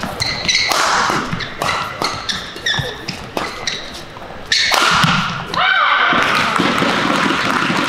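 Badminton rally: sharp racquet strikes on the shuttlecock and short high squeaks of court shoes on the mat, a few each second. About halfway through, a loud burst of crowd shouting and cheering comes in and carries on.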